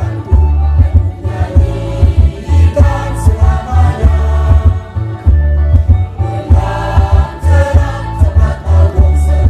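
Church choir singing over a steady, pulsing low drum beat from rebana frame drums.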